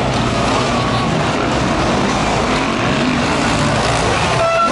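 Motocross bike engines running on a dirt track, several at once, their pitch rising and falling as the riders work the throttle. Near the end a steady high tone comes in.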